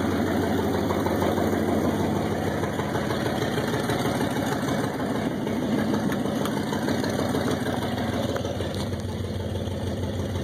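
1964 Ford Fairlane engine idling steadily, with its exhaust in bad shape. The hum eases off slightly near the end.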